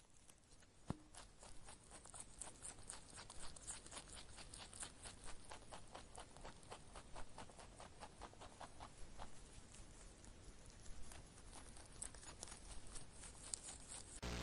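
Rabbit cropping and chewing grass: a faint, irregular run of quick crisp snips and clicks, several a second.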